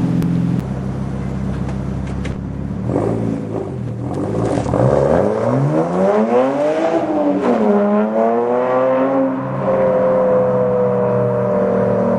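BMW 135i's turbocharged inline-six through a Berk Technology aftermarket exhaust, running steadily, then accelerating with a rising pitch about halfway in. The pitch drops sharply as at a gear change, then climbs again and settles into a steady drone near the end.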